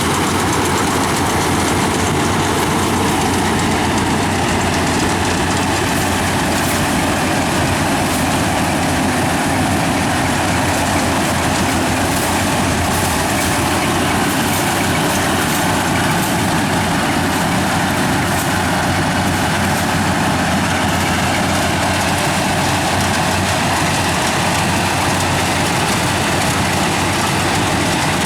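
Yanmar combine harvester's diesel engine and machinery running steadily, a loud, even mechanical din.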